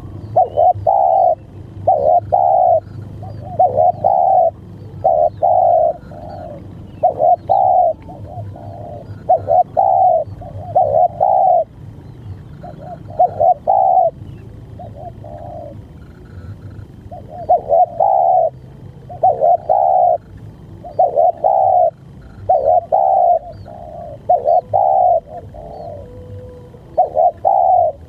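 Spotted dove cooing: repeated phrases of two or three low, rounded coos about a second apart, with a pause of a few seconds past the middle.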